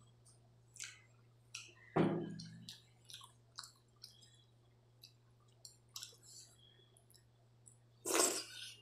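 Wet mouth clicks and smacks of someone eating water rice with mango curry by hand. There is a single loud knock about two seconds in, and a loud wet slurp near the end as a handful goes to the mouth.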